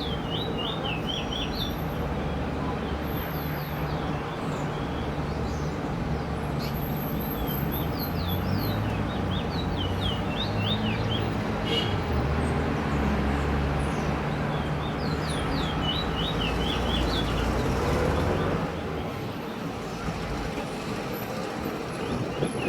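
Trinidad bullfinch (chestnut-bellied seed finch) singing four short phrases of rapid, high, falling whistled notes, over a steady low engine-like rumble that eases off near the end.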